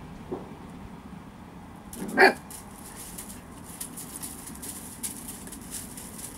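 Siberian husky puppy giving one short bark about two seconds in, after a faint yip near the start, with soft clicking in the background.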